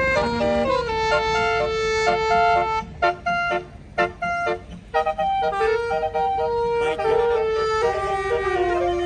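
Indonesian bus 'basuri' telolet horn, a multi-trumpet musical air horn, playing a melody. Held notes step in pitch, broken by a run of short, sharp blasts in the middle, then several notes sound together near the end.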